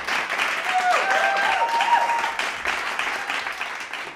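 A crowd applauding with dense clapping that fades away near the end, with a few short rising and falling pitched calls over it between one and two seconds in.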